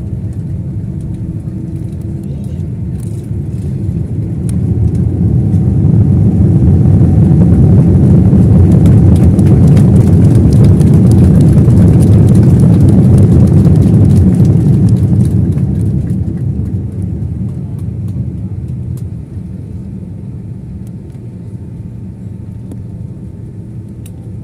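Jet airliner engines, heard from inside the cabin by the wing, as a steady low rumble. The rumble swells about four seconds in, holds at full loudness for roughly ten seconds, then dies down to a lower steady level.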